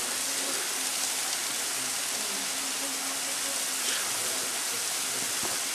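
Hemmed-In Hollow Falls, a tall waterfall, falling onto the rock and pool below as a steady, even hiss of water and spray.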